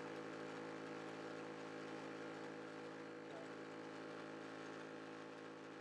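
Yong Heng high-pressure air compressor running steadily as a steady hum with several fixed tones, pumping air into a PCP airgun tank whose valve has just been opened at about 3,200 PSI.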